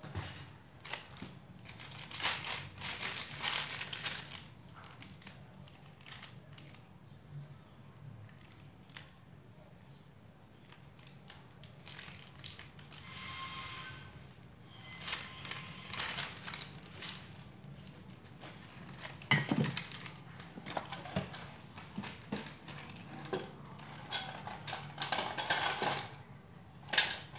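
Handling noises: a plastic piping bag crinkling and rustling, then metal piping tips clinking and rattling as a hand rummages through a tin of them near the end.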